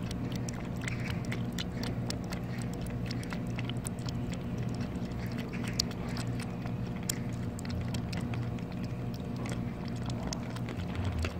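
Young cat lapping watered-down churu from a plastic bowl: quick wet tongue clicks, several a second and irregular, over a steady low hum.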